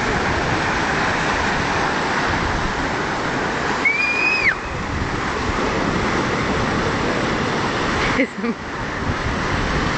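Breaking sea surf washing over rocks, a steady rush of waves, with a child's high-pitched shriek about four seconds in.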